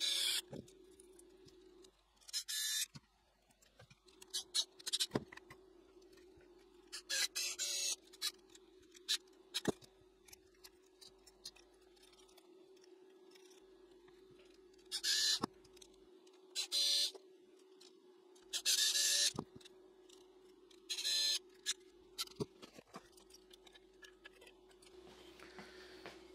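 Small electric precision screwdriver running in about ten short bursts, each under a second, driving tiny Torx screws into a metal case. A steady low hum continues underneath.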